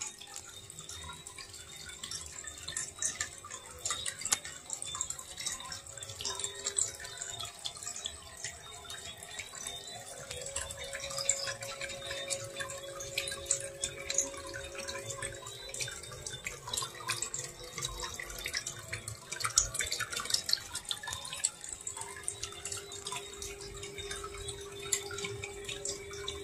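Water from a small homemade aquarium waterfall trickling and dripping into the tank, a steady patter of small splashes.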